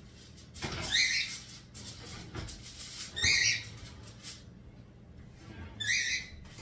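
Three short, high-pitched metal squeaks, about a second, three seconds and six seconds in, from a wall oven's rack sliding and its door being shut.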